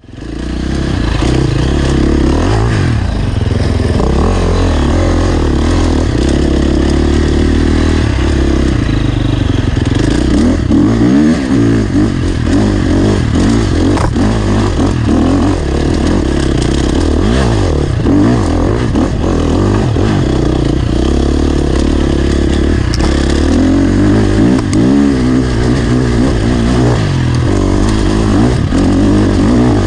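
Dirt bike engine running under load on a rocky trail climb, its revs rising and falling as the throttle is worked, with scattered knocks and clatter from the bike over rocks.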